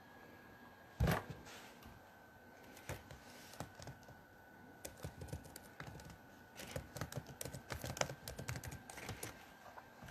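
Fingertips tapping on a phone held close to its own microphone: one louder thump from handling about a second in, then many quick, irregular taps and clicks. A faint steady high tone runs underneath.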